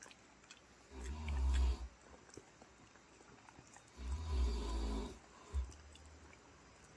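Snore-like breathing, twice, each about a second long and three seconds apart, with a low rumble.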